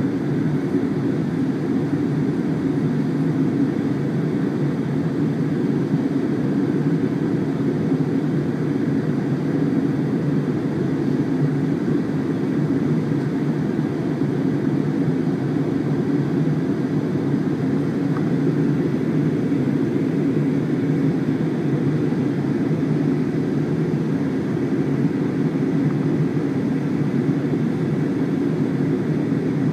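Cabin noise of an Airbus A320-family airliner in flight: a steady, even, low drone of engines and airflow heard from a window seat, with no change.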